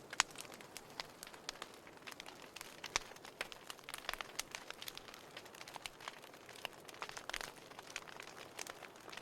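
Fire crackling in a fireplace: irregular small pops and snaps over a faint hiss, with one sharper snap just after the start.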